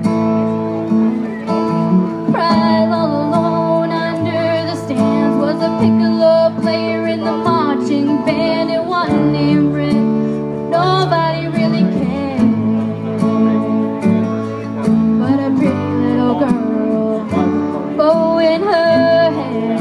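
A country ballad backing track with strummed acoustic guitar, and a woman singing along into a microphone.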